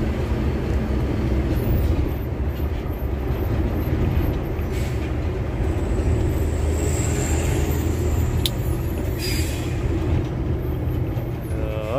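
Tractor-trailer truck driving, its diesel engine and drivetrain giving a steady low rumble, with two short hisses about five and nine seconds in.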